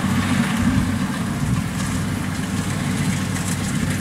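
Kubota rice combine harvester engine running with a steady, even drone.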